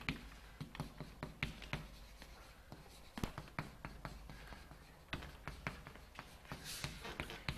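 Chalk writing on a blackboard: a quick, irregular run of sharp taps and short scratches as symbols are written.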